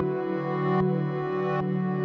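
Soft ambient background music: sustained synthesizer chords with a gentle low pulse about every 0.8 seconds.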